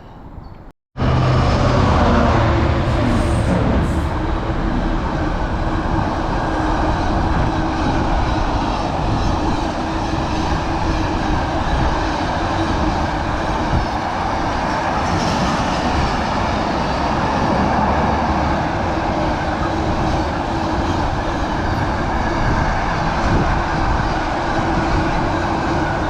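Diesel train running close by on the line: a loud, steady rumble with a low steady hum, starting abruptly about a second in.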